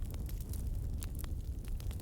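Wood fire burning: a steady low rumble with scattered sharp crackles and pops.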